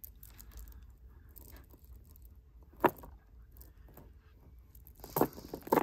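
Strands of natural keshi pearls handled in the hands, clicking against one another: mostly faint, with one sharp click a little under three seconds in and a short run of clicks near the end.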